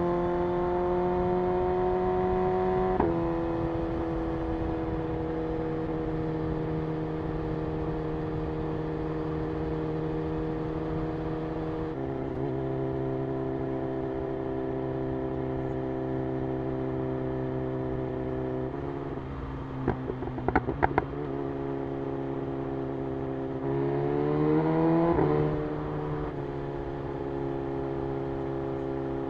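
BMW M 1000 R's inline-four engine running at cruising speed under the rider, with wind noise. Its pitch steps down abruptly twice in the first half, then climbs briefly as it revs about two-thirds of the way through before dropping back. A few sharp clicks come a little past the middle.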